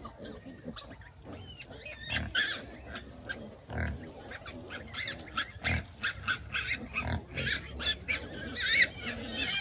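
Native black pigs grunting in short bursts, with high squeals becoming more frequent near the end.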